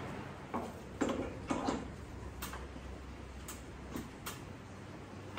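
Scattered light clicks and taps, about eight at irregular spacing, from a welding spool gun and its cable being handled at a MIG welder.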